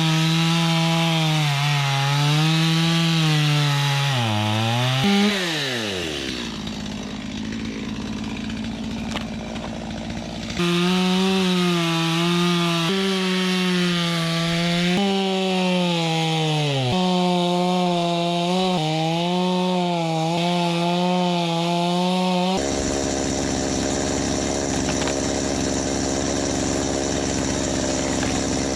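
Two-stroke chainsaw cutting logs, its engine pitch sagging and recovering under load. About five seconds in the throttle is let off and the saw drops to a low idle, then it is revved back into the cut about ten seconds in; near the end the sound changes to a steadier, rougher noise.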